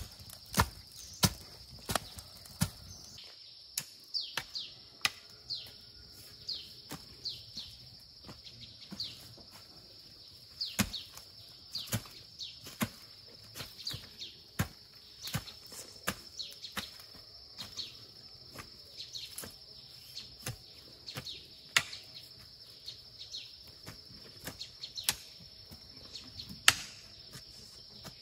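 Hand hoe chopping into dry, loose soil in irregular strokes, each a sharp thud, about one every half second to second. A steady high insect drone runs underneath, with short falling chirps in the first half.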